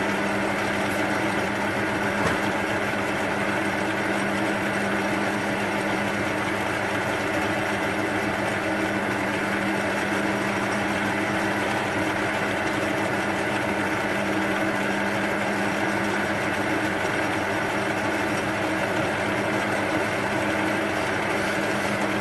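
Metal lathe running steadily at 465 rpm while a centre drill in the tailstock is fed slowly into the end of a spinning piece of rebar, giving an even motor and gear hum. One faint click about two seconds in.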